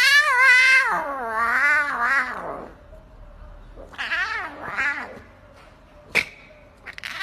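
Lion cub crying out in wavering, mewing calls: two long loud ones in the first couple of seconds, the second falling in pitch, then two shorter, fainter ones about four seconds in. A single sharp click comes about six seconds in.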